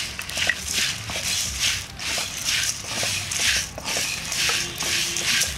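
Dried red chillies, coriander seeds and cumin rattling and scraping in a dry aluminium kadai, stirred with a wooden spatula at about two strokes a second: spices being dry-roasted for a masala.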